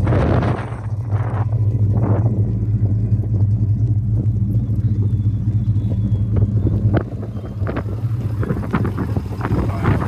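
Steady low drone of a 1968 Chevelle on the highway, heard from inside the cabin, with a couple of brief rushing bursts in the first two seconds and scattered light ticks in the second half.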